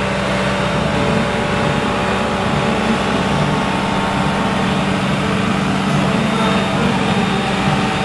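Engine and paving machinery of an XCMG XF100 truck-mounted slurry seal machine running steadily while it lays a slurry surface.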